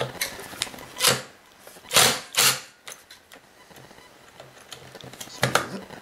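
Cordless power driver run in several short bursts on the screws of a Kirby vacuum's housing, loosening stubborn screws.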